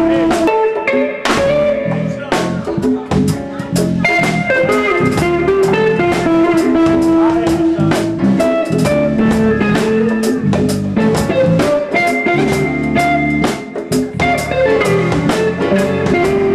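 Live band jamming: drum kit keeping a steady beat with cymbals, electric bass and electric guitar playing together, with some long held notes over the drums.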